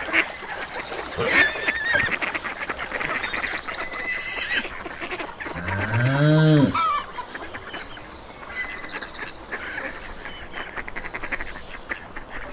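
Farmyard geese honking and ducks quacking in a busy flock, with steady chattering calls throughout. About six seconds in comes a single lower call that rises then falls, lasting about a second.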